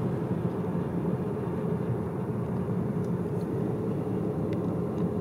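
Škoda Superb driving at steady speed: an even, low hum of engine and tyre noise.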